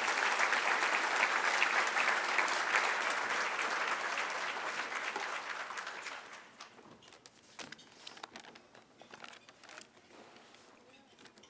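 Audience applauding, dying away about six seconds in, followed by a few faint scattered knocks and shuffles.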